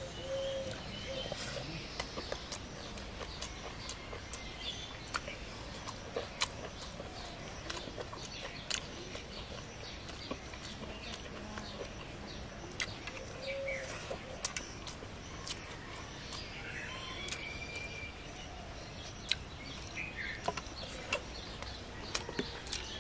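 Close-up eating sounds of a person eating rice and curry by hand: chewing with many short, sharp mouth clicks and smacks scattered throughout. Birds chirp now and then in the background.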